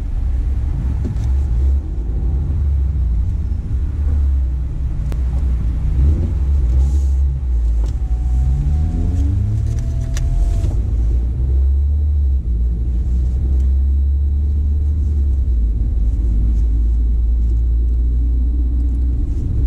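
Car engine and road rumble heard from inside the cabin: a loud, steady low drone, with the engine revving up once about eight seconds in as the car pulls away onto the track.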